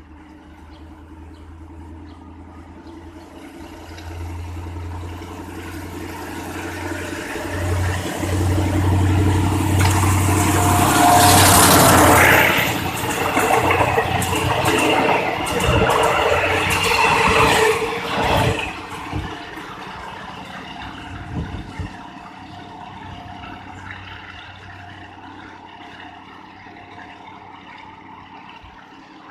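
Alsthom diesel-electric locomotive working hard as it pulls a train away, its engine growing louder to a peak as it passes, followed by several seconds of rapid wheel clatter from the passing carriages, then fading away.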